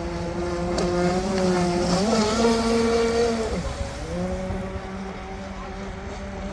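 Electric RC speedboat on a 6S battery running fast across choppy water. Its motor whine steps up in pitch about two seconds in, drops away briefly a little past halfway as the throttle eases, then picks up again.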